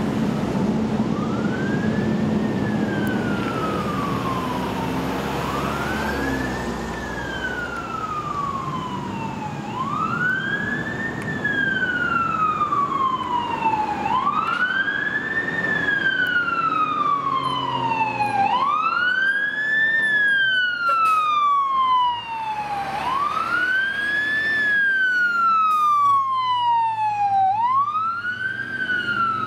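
Fire apparatus siren wailing. Each cycle rises quickly in pitch, then falls more slowly, repeating about every four and a half seconds, over the low rumble of the trucks' engines.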